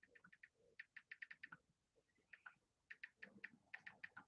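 Faint typing on a computer keyboard: quick runs of key clicks broken by short pauses.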